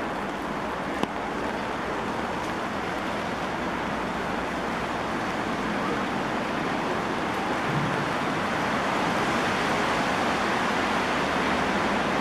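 Heavy rain falling steadily on wet paving, an even hiss with a single sharp tick about a second in. It gets slightly louder in the second half.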